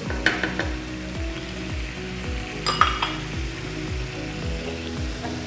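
Tomato and peanut-butter sauce sizzling in a non-stick pan while a wooden spoon stirs it, with a couple of knocks of the spoon against the pan, one just after the start and one about three seconds in. Background music with a steady beat runs underneath.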